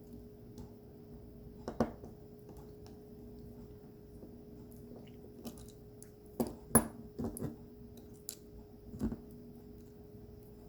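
Small metallic clicks and taps from a small Phillips screwdriver and tiny screws being handled while the back of a Sony action camera is unscrewed: one tap about two seconds in, a quick cluster a little past the middle, and one more near the end, over a faint steady hum.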